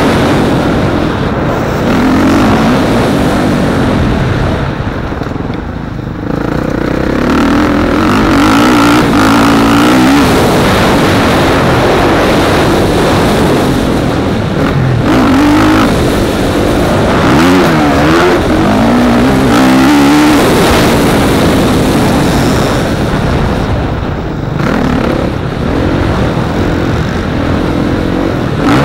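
On-board sound of an off-road motorcycle engine revving hard, its pitch repeatedly rising and falling as the throttle opens and closes, over a steady rush of wind on the camera.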